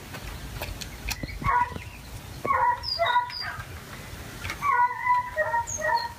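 An animal's short yelping calls, coming in three quick runs of a few calls each. A few faint high bird chirps sound above them.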